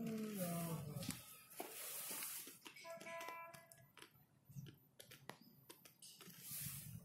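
Faint voices of people nearby: a short voice falling in pitch at the start and a high held call about three seconds in, over scattered clicks and knocks.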